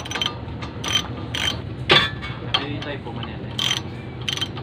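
Ratchet wrench clicking in short bursts as it is swung back and forth, turning a bolt on the front suspension, likely the 19 mm lower-arm bolt; one sharper metallic knock about two seconds in.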